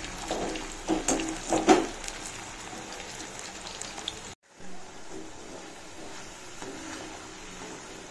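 Chunks of nendran banana deep-frying in hot coconut oil in a kadai, a steady sizzle. A perforated steel skimmer stirs them, knocking and scraping against the pan several times in the first two seconds. The sound cuts out briefly a little past the middle.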